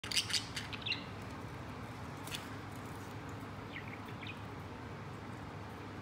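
Budgerigar chirping: a quick run of short, high chirps in the first second and a few softer ones a little before the middle, over a steady low hum. A single sharp click comes a little after two seconds.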